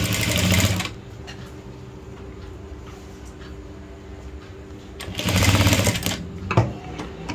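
Industrial single-needle sewing machine stitching a folded sleeve hem in two short runs, one at the start and one about five seconds in. A low steady hum sounds between the runs.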